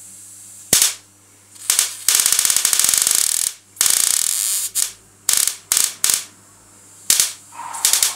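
High-voltage sparks from a TV flyback transformer with voltage tripler, about 20 kV, arcing across pencil graphite on paper. About ten sharp crackling discharges: after two short snaps, a sustained crackling arc runs for about a second and a half, another for just under a second, then several more short snaps.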